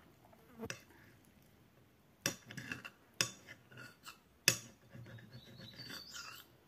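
A metal spoon clinking and scraping against a plate as food is scooped up. There are four sharp clinks, the loudest about four and a half seconds in, followed by softer scraping.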